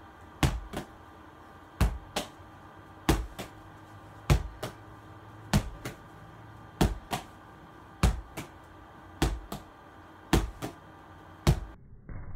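A small ball thrown against a wall again and again, about ten times, roughly once every second and a bit. Each throw gives a sharp knock followed about a third of a second later by a softer one, the ball striking the wall and then being caught in the hands.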